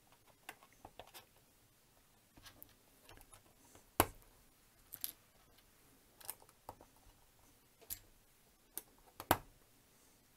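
Sembo Block plastic building bricks clicking as they are handled and pressed together: scattered, irregular clicks, with two louder ones about four seconds in and near the end.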